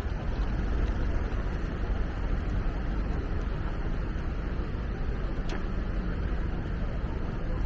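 Steady city street ambience: the low rumble of road traffic and the general noise of a busy street, with a brief sharp high sound about five and a half seconds in.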